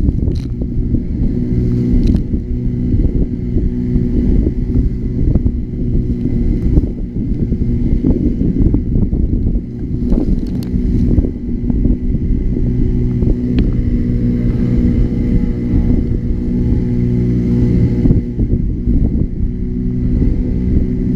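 Motorboat engine running steadily under a rough, gusting low rumble, with a few scattered knocks.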